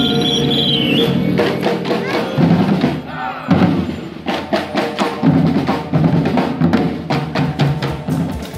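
Street drum troupe beating large hand-held drums with sticks: a loud, uneven run of drum strokes from about a second in.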